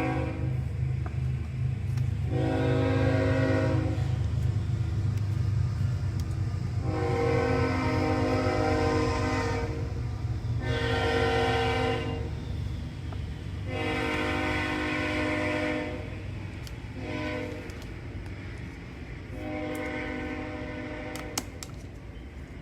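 Passing train's horn sounding about six blasts, mostly long with two short ones, over the steady low rumble of the train.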